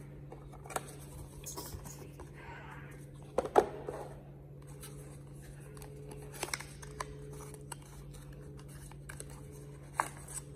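Small cardboard boxes being handled and opened by hand: scattered light taps, scrapes and rustles of card, with a few sharper clicks, the loudest about three and a half seconds in. A low steady hum runs underneath.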